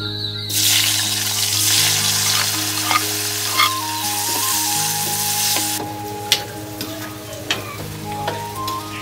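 Cashew nuts hit hot oil with mustard seeds in a pot and sizzle loudly while stirred with a metal ladle. The sizzle starts about half a second in and fades after about six seconds, leaving scattered clicks of the ladle against the pot.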